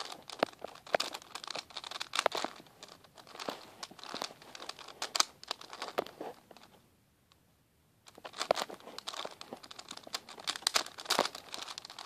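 Plastic layers of a 4x4x4 Rubik's cube being turned by hand in quick succession while running through a corner-swap algorithm: a steady run of sharp clicks and clacks, broken by a pause of about a second just past the middle.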